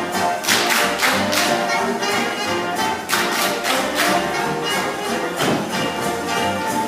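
Big band swing music with brass and a beat of cymbal strokes.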